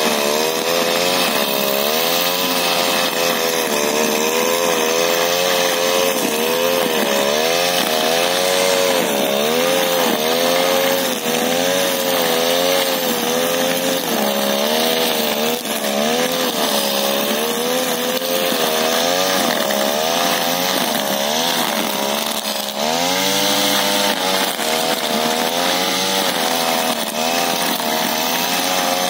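STIHL petrol brush cutter running at high revs while cutting grass, its engine pitch wavering up and down over and over as the load and throttle change. About three quarters of the way through it briefly drops lower, then revs back up.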